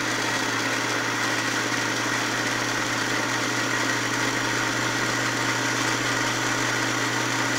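Ramtons 3-in-1 electric blender's motor running steadily, blending tomatoes in the jug.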